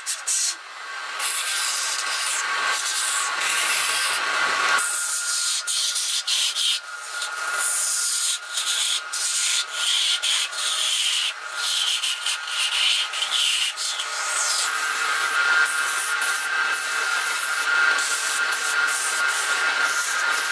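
Hand-held sandpaper rubbing against wood spinning on a lathe: a dry, hissing scrape that breaks off briefly many times as the paper lifts and presses again. A steady whine from the running lathe sits underneath.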